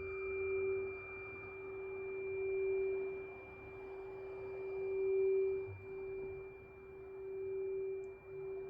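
Tuning fork tuned to G ringing with a steady pure tone, its loudness swelling and fading in slow waves and briefly dropping out twice, a little before six seconds and about eight seconds in.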